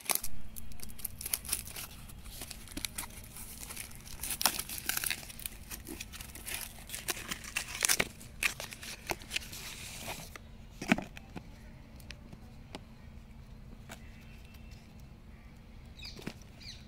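Packing tape and a cardboard delivery box being cut and torn open by hand, with scratchy ripping and crinkling and many sharp clicks for about ten seconds. After that, only a few isolated clicks and taps as the box is handled.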